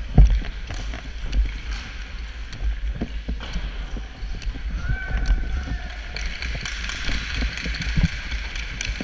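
Sled hockey sled moving over the ice: a run of sharp clicks and knocks as the picks on the sled-hockey sticks dig in, under a low rumble, with the blades' scraping hiss growing stronger about six seconds in.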